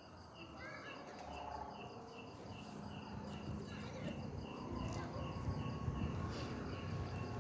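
Crickets chirping in a steady, even rhythm of about two to three short chirps a second, over a low background rumble that grows louder in the second half.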